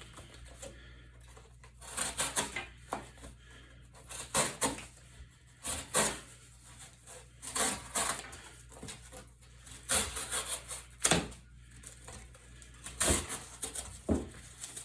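Swiss Tech Wurdig folding knife slicing through cardboard: a series of short ripping strokes, about one every one and a half to two seconds.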